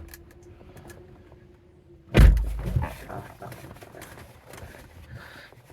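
The driver's door of a 2009 BMW E92 coupe being shut once about two seconds in: a single heavy thunk.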